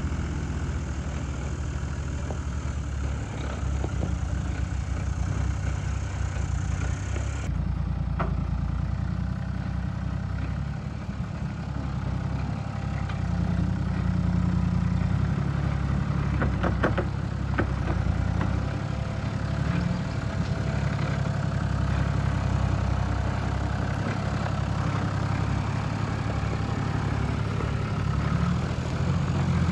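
Toyota LandCruiser 80 series engine running steadily at low revs as the locked four-wheel drive crawls through deep ruts in low-range reduction gears. A few sharp clicks come about halfway through.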